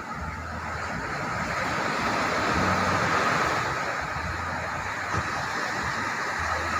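Ocean surf breaking and washing up a sandy beach, a steady rush of waves that swells a little about two and a half seconds in, with wind rumbling on the microphone.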